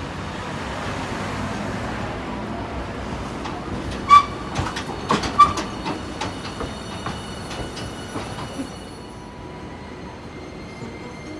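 Hiroshima Electric Railway Green Mover LEX low-floor tram rolling slowly past over the station's points: a steady rumble, then two sharp ringing metal squeals of the wheels on the rails about four and five and a half seconds in, followed by a run of wheel clacks over the rail joints and switch frogs. After it passes, a faint steady high-pitched whine remains.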